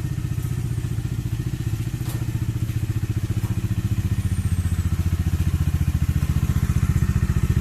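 Exhaust of a 2020 BS6 Bajaj Dominar 400, a single-cylinder motorcycle, running steadily with an even, bassy pulsing note.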